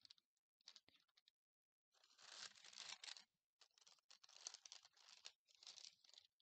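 Faint crinkling of a clear plastic disposable piping bag being handled, in three rustling stretches from about two seconds in, after a few small ticks.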